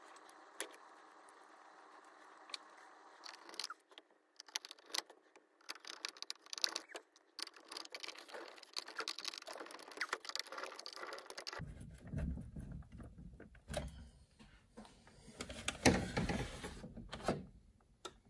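Small clicks and clinks of a screwdriver and fingers working on a circuit board inside a plastic clock case, then louder knocks and thumps of the plastic case being handled, the loudest a little past two-thirds of the way in.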